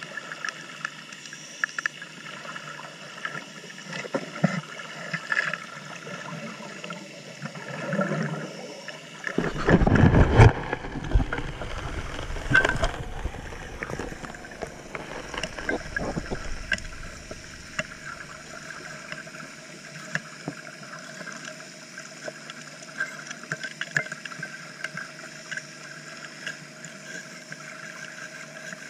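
Underwater sound of a suction gold dredge at work: a steady hum from the dredge's engine and pump carried through the water, with stones and gravel clicking and knocking. About ten seconds in there is a loud bubbling rush, lasting a few seconds, as exhaled air from the diver's hookah regulator bubbles up past the camera.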